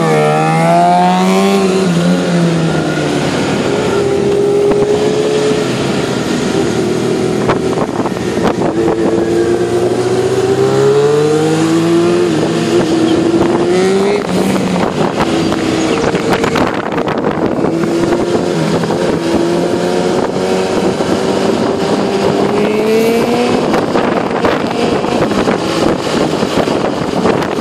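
Motorcycle engine heard from the rider's seat, pulling away and rising and falling in pitch again and again as it accelerates and shifts gear, over steady wind rush.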